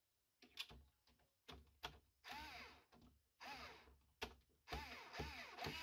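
Plastic and metal housing panels of a Krups Barista EA9010 coffee maker being pressed and fitted into place: a run of clicks and knocks mixed with short scraping bursts, some carrying brief whirs that rise and fall in pitch.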